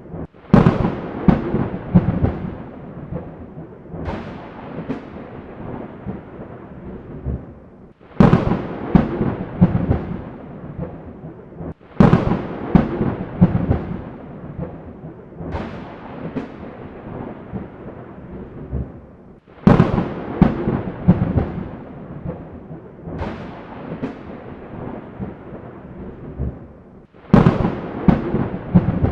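Thunderstorm with a new thunderclap about every four seconds: each begins with a sudden sharp crack, then rolls off into rumbling over several seconds. A steady wash of storm noise fills the gaps between claps.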